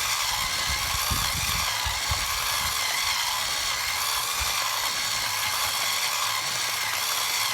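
Coffee grinder running steadily on a fine setting, grinding beans, with irregular low knocking mostly in the first half. The grinding is slow.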